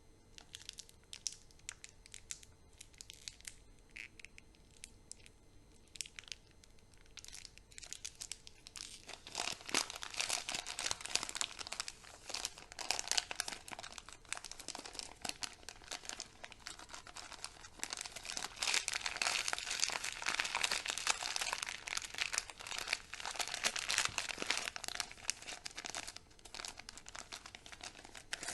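Chocolate candy wrappers being torn open and crinkled: sparse light clicks and rustles at first, then dense, continuous crinkling from about nine seconds in until near the end.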